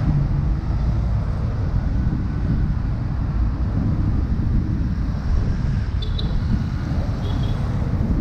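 Steady wind noise on the microphone of a camera riding on a moving bicycle, with street traffic beneath it. Two faint, brief high-pitched tones about six and seven seconds in.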